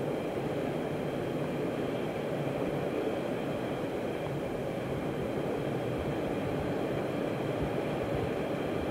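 MBTA Orange Line subway train running at steady speed through a tunnel: an even rumble of wheels on rail, with a faint high whine over it.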